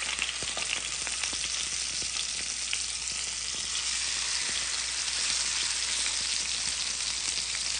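Mahi-mahi fillets frying in hot oil in a skillet: a steady sizzling hiss dotted with small pops and crackles.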